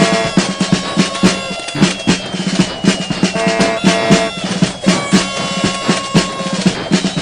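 Music with a driving drum beat, dense drum hits and rolls under pitched instrument tones.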